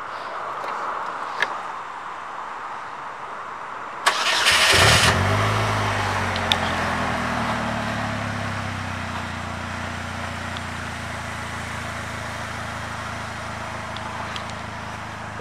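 2018 Polaris Slingshot SL's 2.4-litre four-cylinder engine starting about four seconds in: a click and brief crank, a short flare of revs that settles, then a steady idle.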